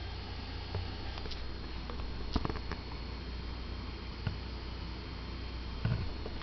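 Dell Inspiron E1505 laptop giving a steady high-pitched whine while under load, over a low hum. A few sharp clicks break in, the loudest about two and a half seconds in.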